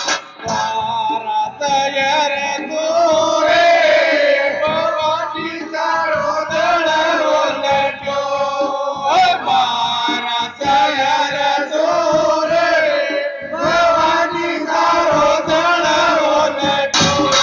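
A Hindi devotional jas to the Mother Goddess sung in long wavering phrases over instrumental backing.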